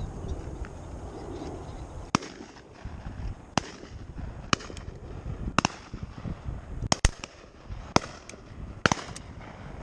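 Shotguns firing some way off, about eight single shots spread over the seconds, with a quick double shot about seven seconds in.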